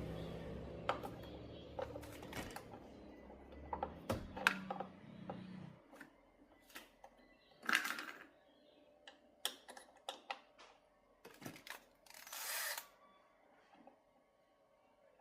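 Music fading out over the first few seconds, then scattered sharp clicks and taps, with two short rustling bursts, about eight seconds in and near the end.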